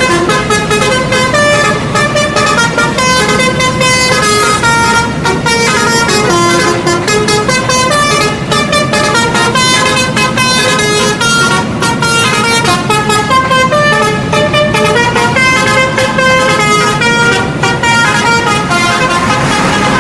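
Telolet multi-tone musical horn playing a quick melody, its notes changing several times a second, without a break.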